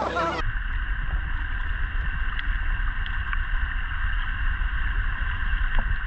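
Muffled underwater sound from a GoPro camera plunged into a shallow thermal pool: a steady low rumble of moving water with the high end cut off, starting about half a second in, with a few faint ticks.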